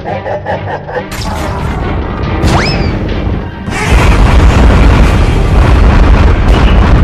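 Cartoon monster-fight sound effects over background music: a rising whistle-like glide about two and a half seconds in, then from about four seconds a loud, deep rumbling boom.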